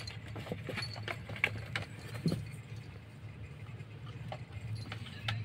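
Cats play-fighting in and around a cardboard box: scattered scratches, scrapes and knocks of paws on the cardboard, busier in the first half, over a steady low hum.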